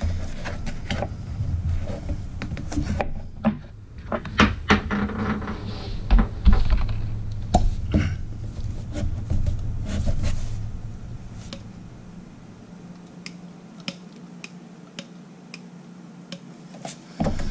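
Irregular metal clicks, clinks and knocks from handling and working a new bronze valve with a grease gun hooked to its grease fitting, over a low hum that stops about twelve seconds in.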